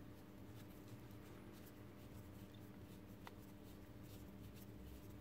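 Faint small clicks and scrapes of a screwdriver turning a screw into a plastic robot arm frame, with one sharper click about three seconds in, over a steady low hum.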